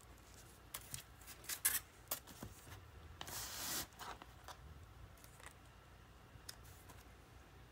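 Vinyl LP jackets in plastic outer sleeves being handled and flipped: a run of crinkles and taps, then a longer sliding swish about three seconds in as one record is moved across another, then a few small ticks.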